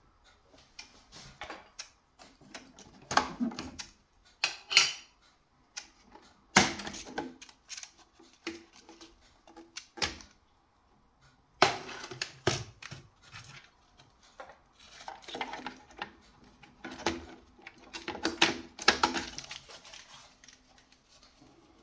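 Irregular clicks, knocks and rattling clatter of hand work on a Worcester Bosch combi boiler's casing and fittings, with a handful of sharper knocks among the quieter handling noises.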